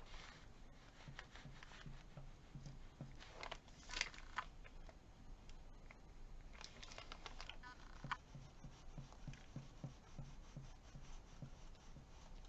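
Faint scratching and rustling of paper being handled, with a few louder scrapes around four seconds in and again about seven seconds in.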